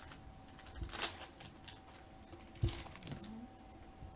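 Foil trading cards and a pack wrapper handled in the hands: faint rustles and a few sharp flicks as the cards slide past one another, the loudest about two and a half seconds in.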